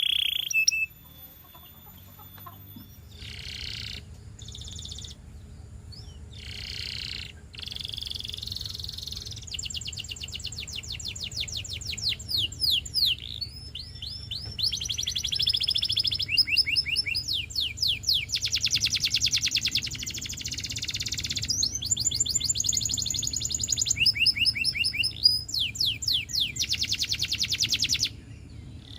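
Russian song canary in full song: a long string of rapid, high trills and rolls, each phrase repeated for a second or two before switching to the next, with a brief pause near the end.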